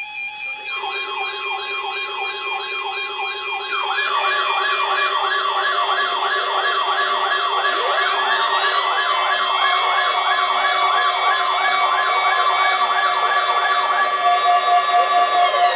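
Layered electronic siren and alarm tones played as a joke stand-in for the NOAA Weather Radio warning alarm. A fast wailing siren sweeps about three times a second over steady tones. More sirens join about four seconds in, a falling glide cuts through around eight seconds, and a pulsing tone starts near the end.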